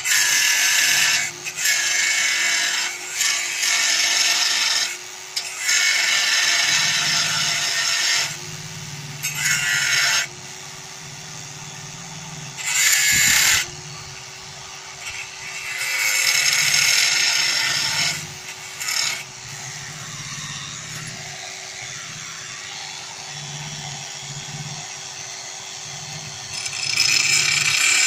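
Bosch GWS 8-100 CE angle grinder running at a low speed setting, its motor humming steadily while the disc cuts into thin sheet metal in a series of short passes, the loud grinding noise starting and stopping every second or two. Near the end a longer, steady cut begins.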